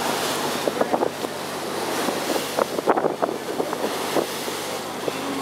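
Wind rushing over the microphone and water splashing along the hull of a moving boat, over the steady low drone of the boat's engine. There are a few sharper splashes or gusts about a second in and around three seconds in.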